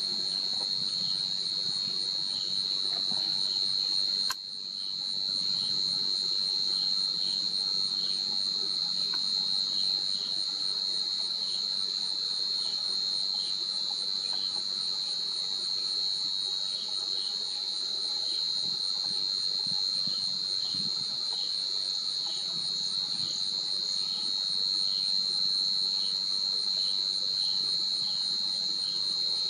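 Steady, high-pitched chorus of forest insects, with faint regular pulses running through it. A sharp click about four seconds in briefly cuts the level.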